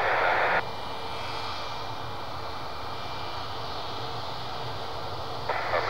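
Airbus A220-300's Pratt & Whitney PW1500G geared turbofans running at taxi power, a steady hum with a faint whine. A burst of band-limited air traffic control radio hiss cuts off just after the start and starts again near the end.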